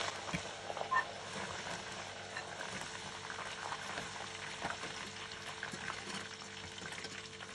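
Cubed potatoes deep-frying in hot oil in a stainless steel pot, a steady fizzing sizzle. A few light clicks of a metal slotted skimmer against the pot come through it as the fried cubes are scooped out.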